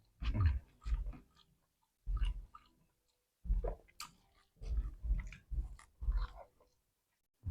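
Close-up chewing of fried chicken and rice: short wet mouthfuls in uneven bursts, roughly one or two a second, with brief pauses between runs.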